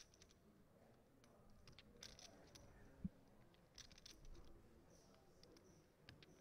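Near silence at a poker table, broken by a few faint clicks of clay poker chips being handled and a single soft low thump about three seconds in.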